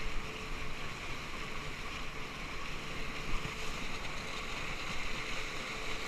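Steady rush of wind buffeting the action camera and water hissing past a raft towed behind a slow motorboat, with a faint steady hum under it.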